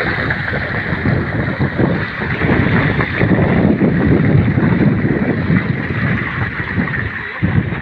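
Water gushing from a solar pump's discharge pipe and splashing into a concrete tank: a loud, steady rushing.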